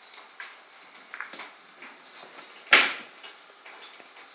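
A knife chopping an onion directly on a bare countertop with no cutting board: a few light taps, then one sharp, loud knock of the blade against the counter about two-thirds of the way through.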